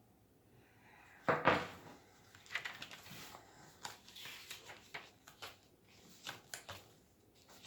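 Paper pages of a handmade junk journal being handled and turned: scattered rustling and crinkling with small taps, loudest about a second and a half in.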